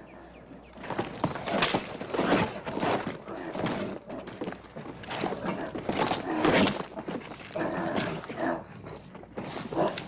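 A horse bucking under its rider: irregular heavy hoof thuds and stamping, with the horse squealing and snorting and a man's shouts mixed in.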